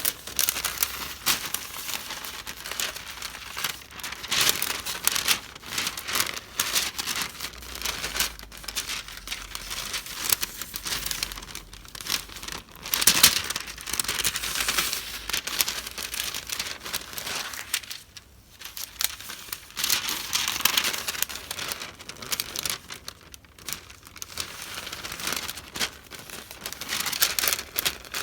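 Paper goods and their wrapping being handled and unpacked by hand, with irregular crinkling and rustling close to the microphone.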